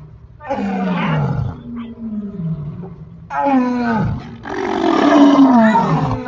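Three deep animal roars, each sliding down in pitch, the last the longest, presented as dinosaur sounds.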